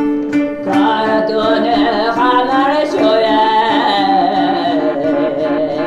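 Live folk music: a few plucked balalaika notes, then a woman sings one long, wavering phrase over a steady low drone.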